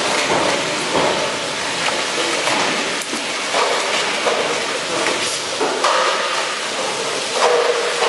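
Wet slapping and scrubbing of large squid mantles on a wet steel processing table, with repeated short slaps over a steady hiss of water and plant noise.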